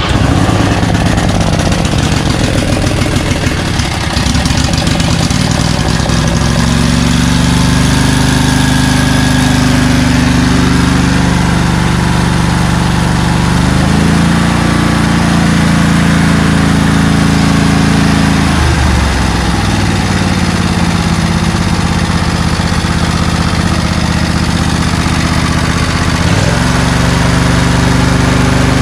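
Briggs & Stratton 20 hp air-cooled V-twin in a lawn tractor, just started on choke and running. It is uneven for the first few seconds, then settles. Its speed shifts up and down several times as the throttle lever is worked, dipping briefly twice near the end.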